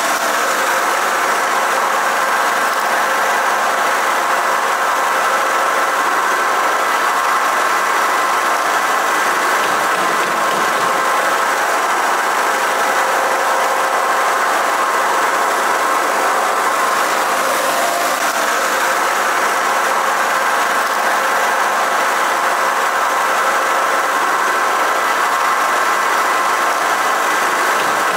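Snack-food extrusion line machinery running steadily: a constant mechanical hum with a few steady tones in it, unchanging throughout.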